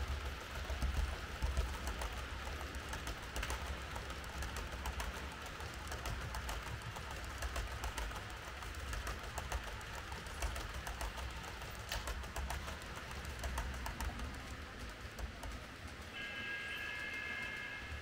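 Märklin H0 model trains running on the layout's track: a steady whirr with a low rumble and many small rapid clicks of wheels over rail joints and points. A steady high-pitched tone joins about two seconds before the end.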